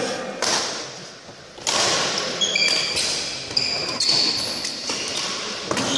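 Badminton rally in a reverberant sports hall: several sharp racket strikes on the shuttlecock, with short high squeaks of shoes on the wooden court floor in the middle seconds.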